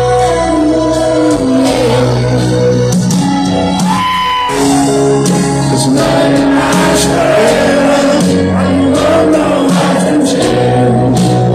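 Live rock ballad played through a stadium PA and heard from the audience: piano and band under a sung lead vocal with held, gliding notes.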